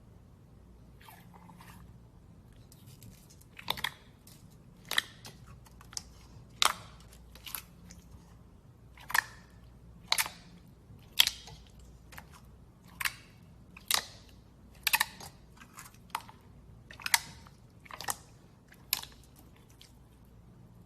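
Slime being handled, giving short, sharp crunchy pops about once a second, starting a few seconds in.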